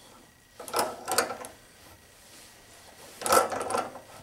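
Steel jaws of a 10-inch pair of Knipex pliers clicking and rattling on a hex bolt head held in a bench vise as they are worked around the bolt: two short bursts of metal clicks, about a second in and again around three seconds in.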